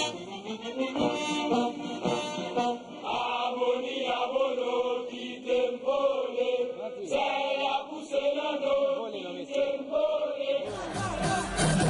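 A group of voices singing a chant together, the melody rising and falling. Near the end it cuts to fuller band music with a heavy low beat.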